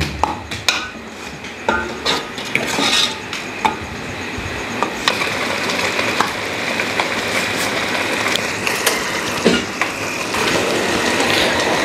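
Steel ladle stirring and scraping a ground onion-tomato-coconut masala in an aluminium pot, clicking and knocking against the pot's sides and bottom. From about four seconds in, a steady sizzle builds as the masala fries in oil.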